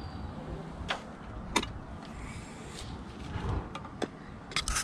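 Quiet handling of a sealant gun laying a bead of bonding sealant on an aluminium bracket. A few sharp clicks come about one and one and a half seconds in, and a quick run of clicks near the end.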